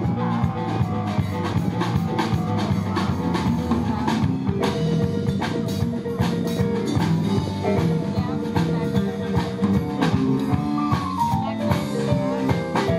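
Live blues band playing a shuffle: drum kit, electric guitar and keyboard, with a run of falling notes near the end.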